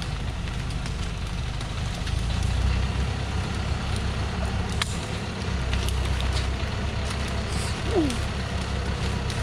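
Thaco Foland light truck's diesel engine running at a low, steady pace as the truck reverses slowly up a narrow dirt track. A few sharp snaps come from the cut branches under its tyres.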